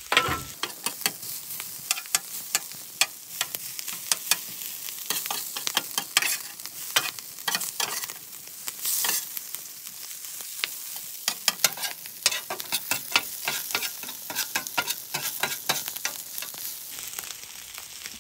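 A metal spatula scrapes and taps repeatedly on a steel griddle top as cold leftover rice is chopped up and stirred, with frequent sharp clicks over a steady sizzle. The rice is frying in oil with a splash of water, which steams to loosen it.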